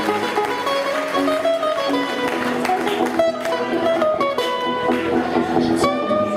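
Live music led by an acoustic guitar, plucked and strummed as accompaniment in an acoustic pop cover.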